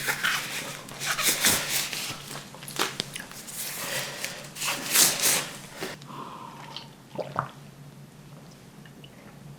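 Close-miked eating sounds: a person chewing and biting food, dense and loud for about six seconds, then fainter with a few small mouth sounds.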